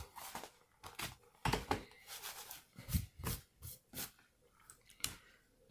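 Paper rustling as a page of a spiral-bound notebook is turned over and pressed flat, heard as a series of short rustles and light taps.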